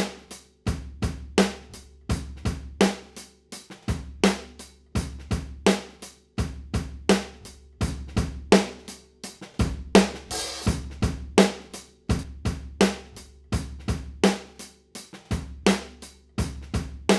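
Recorded drum kit heard through its overhead microphones, playing a steady groove of kick, snare and hi-hat, with a cymbal crash about ten seconds in.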